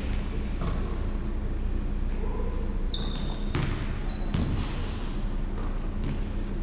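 Basketball bouncing on a hardwood gym floor at irregular intervals, with brief high sneaker squeaks and reverberation of a large hall, over a steady low hum.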